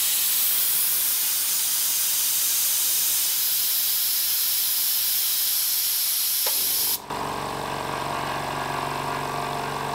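Steady hiss of compressed air from an air blow gun held open. About seven seconds in the hiss drops and the Hyundai HY27550 oil-free low-noise compressor's electric motors start with a steady hum: tank pressure has fallen below the cut-in level and the pressure switch has restarted the compressor to refill the tank.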